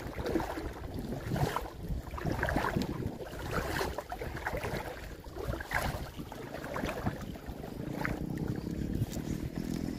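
Gusty wind rumbling over the microphone, with choppy water lapping at the shore.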